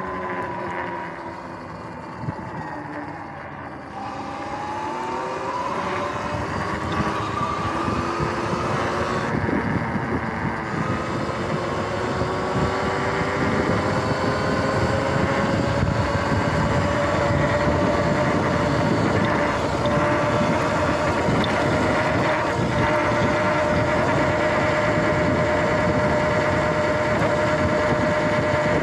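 Sur-Ron X electric dirt bike riding along a paved path: its motor and drive whine drops in pitch as the bike slows about two to four seconds in, climbs as it speeds up again, then holds steady at cruising speed. Wind and tyre rush run under the whine.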